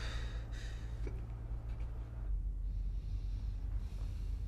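A person breathing quietly in a hushed room, over a steady low hum.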